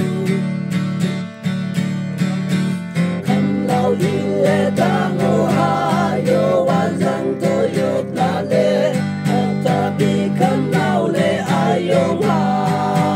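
A group of men singing together into one microphone over a strummed acoustic guitar accompaniment. The guitar runs alone at first and the voices come in about three seconds in.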